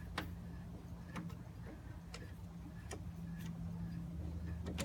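Light, irregular clicking and ticking from the works of a vintage Fleetwood zig zag sewing machine as its handwheel is turned slowly by hand, the needle bar and linkages going up and down; the mechanism turns smoothly. A faint steady low hum runs underneath.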